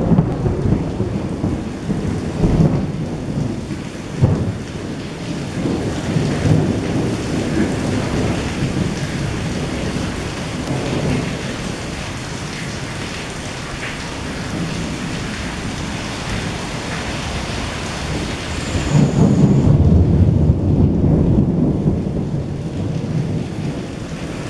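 Steady rain falling on wet pavement with rolling thunder. The longest and loudest rumble of thunder swells up about three quarters of the way through and slowly dies away.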